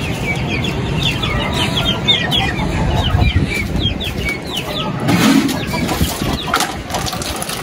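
Young chicks peeping in quick, falling chirps, several a second, with hens clucking, over a low wind rumble on the microphone. The peeping thins out after about five seconds, and a few knocks follow.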